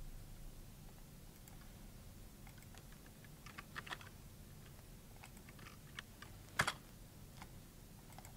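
Faint typing on a computer keyboard, in a few short runs of key clicks, with one louder click about six and a half seconds in.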